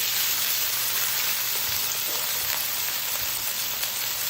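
Potatoes sizzling in hot oil in a non-stick skillet, a steady hiss of frying.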